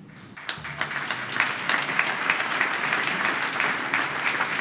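Audience applauding: a dense patter of many hands clapping that swells in about half a second in and then holds steady.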